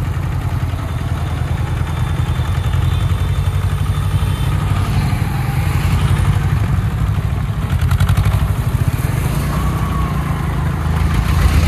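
Mahindra Jivo 245 DI compact tractor's two-cylinder diesel engine running steadily as the tractor drives along the road.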